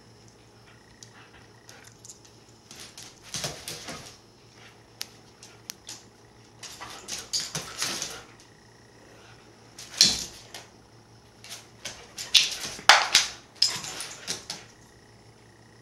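Siberian husky's claws clicking and scrabbling on a hardwood floor as it lunges and pounces, in several short bursts with quiet gaps between.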